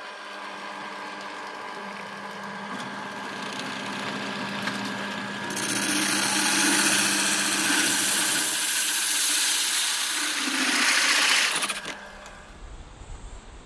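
Drill press running with a hole saw cutting into a plastic bucket lid: a steady motor hum that builds, then about halfway through a loud hiss as the saw teeth bite into the plastic, which cuts off sharply near the end.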